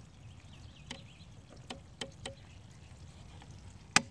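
Small plastic clicks from an optical-fibre fusion splicer's fibre clamps and cover being closed by hand as the fibres are loaded: a few light clicks, then a sharper snap near the end.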